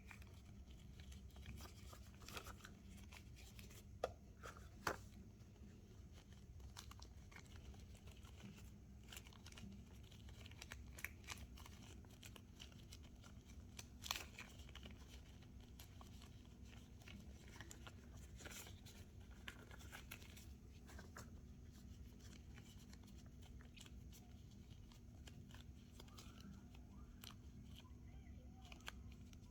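Near silence with a steady low hum, broken by faint scattered clicks and crinkling rustles of handling; a couple of sharper clicks come about four and five seconds in, and another near the middle.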